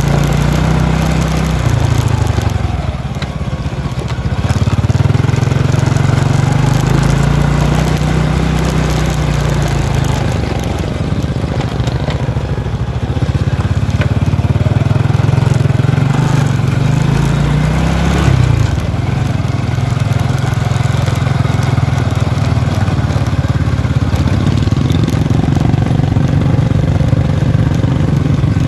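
Small motorcycle engine running while ridden along a rough dirt track. Its note rises and falls as the throttle opens and closes, with a brief easing off a few seconds in.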